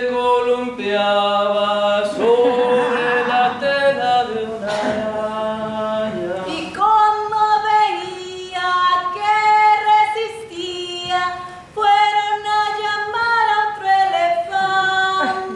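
Voices singing a slow melody without instruments, holding long notes that step from one pitch to the next, with a few short breaks between phrases.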